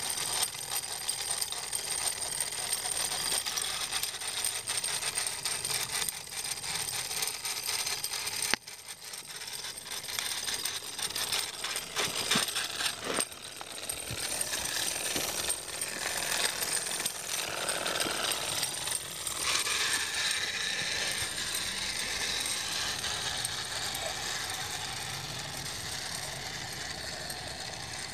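Wilesco D36 toy steam roller's small single-cylinder steam engine running, with a fast, even clatter of exhaust chuffs and mechanism ticks as it drives along.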